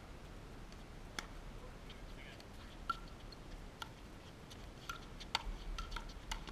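Pickleball paddles striking a hard plastic ball during a rally: sharp pops with a short ring, sparse at first and then coming about twice a second near the end.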